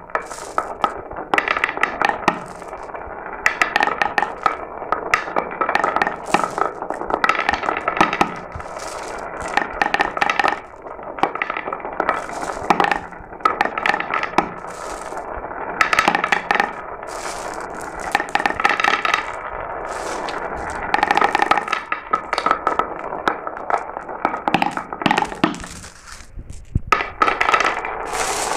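Glass marbles rolling down a marble run, clicking and clattering against the track and one another in a dense stream of clicks, with a brief lull about two seconds before the end.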